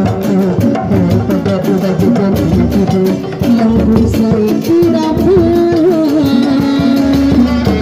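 Sundanese kuda renggong procession music: large barrel drums beaten in a steady rhythm under a female sinden singing, with a long held note in the second half.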